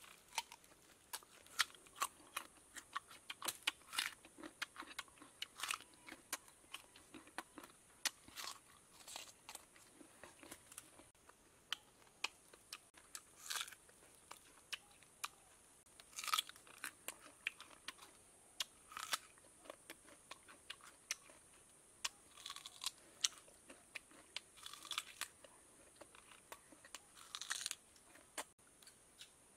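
Green ambarella (June plum) fruits being bitten into and chewed: a run of crisp crunches at irregular intervals.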